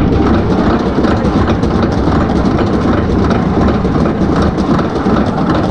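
Arrow suspended roller coaster train rolling slowly out of the station: a steady, loud rumble of wheels on the steel track with rattling and clacking.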